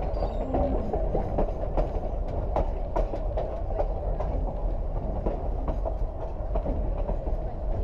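Durango & Silverton narrow-gauge train rolling along the track: a steady rumble with frequent irregular clacks and rattles from the wheels and cars.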